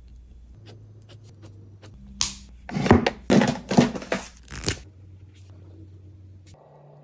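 Plastic art markers clacking against one another as a hand rummages in a packed wooden marker rack and pulls one out: a few light ticks, then a quick run of sharp clatters lasting about two and a half seconds.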